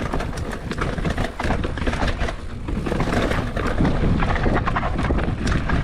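Polygon Siskiu T8 mountain bike ridden fast over a rough dirt trail: wind rumbling on the action camera's microphone, with a steady clatter of knocks and rattles from the tyres, chain and frame over bumps.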